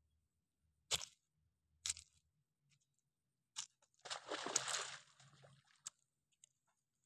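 Spade digging into wet mud: two sharp chops about a second apart, then a squelching, tearing stretch of about a second as a clod of mud is levered up, and a small knock near the end. Faint.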